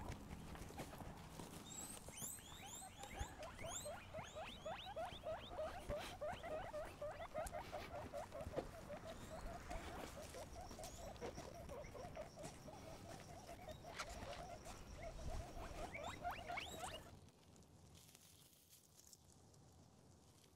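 Guinea pig squeaking in a long, fast run of short rising calls, several a second, with a few fainter high chirps early on; it stops suddenly near the end.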